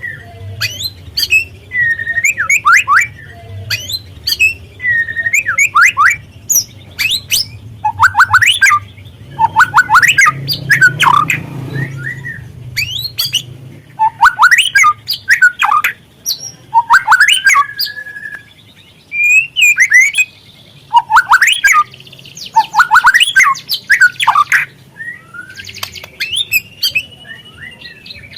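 White-rumped shama (murai batu) song played as a lure: loud, rapid phrases of whistled glides mixed with harsh chattering notes, sung in repeated bursts with short pauses between them.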